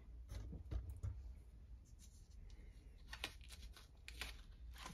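Faint rustling and a few soft ticks of paper being handled on a shirt: the sublimation transfer paper being lifted off the fabric after heat pressing.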